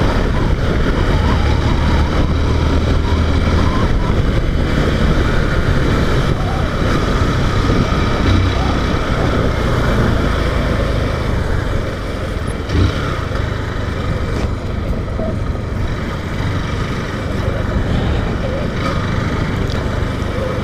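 Motorcycle being ridden at steady speed: engine, road noise and wind rushing over the rider's microphone in a continuous low rumble.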